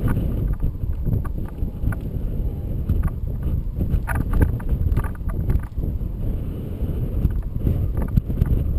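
Wind buffeting the microphone of a camera towed on a line behind a paraglider in flight: a steady low rumble with irregular clicks and rattles.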